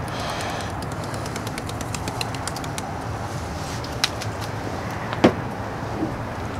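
Seasoning shaken from a shaker onto the sauce: a light rattle of quick faint ticks over the first few seconds, a click about four seconds in and a sharper click about five seconds in, over a steady background hiss.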